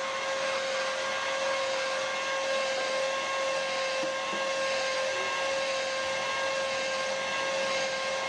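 Corded electric rotary polisher running at a steady speed, its foam pad buffing car paint: a constant whine with a hiss over it.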